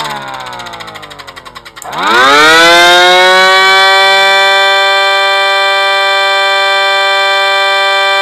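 3D-printed 8/12-port air raid siren, its rotor spun by a DC motor: the wail falls in pitch for about two seconds, then climbs sharply as the rotor spins back up and settles into a loud, steady chord of several tones.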